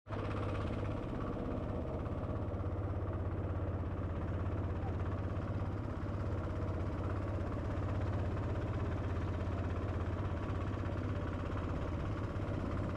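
An engine running steadily at a constant speed with a strong low hum.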